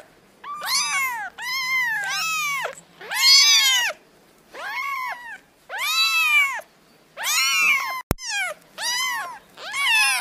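Kittens meowing over and over, about ten high-pitched meows in a row, each rising and then falling in pitch, with short gaps between them. A single sharp click is heard a little after the middle.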